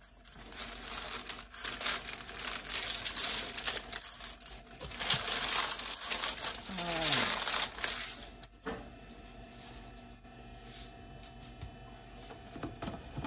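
Parchment paper rustling and crinkling as it is handled and smoothed out, loudest about five to seven seconds in, then dying down to a few soft knocks as the banneton is handled.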